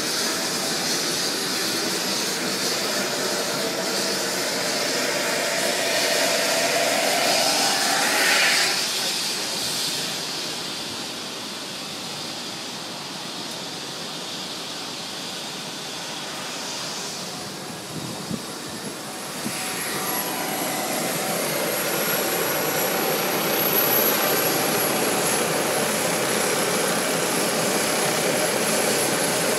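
Air ambulance helicopter's turbine engines running on the ground: a steady rushing whine with a thin high tone. It fades for several seconds in the middle, then comes back louder.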